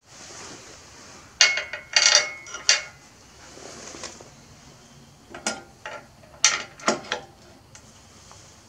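Metal clinks and knocks as bolts and a small electric winch are handled and set onto a steel mounting plate: three sharp knocks between about one and three seconds in, then a second cluster of knocks a little after five seconds.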